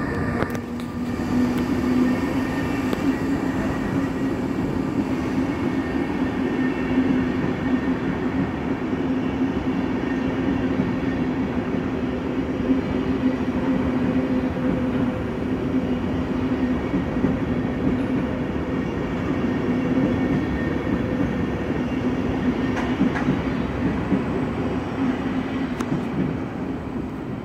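SBB passenger train, a string of coaches hauled by an Re 460 electric locomotive, passing by on the station tracks: a steady rumble of wheels on rail with a steady low hum over it.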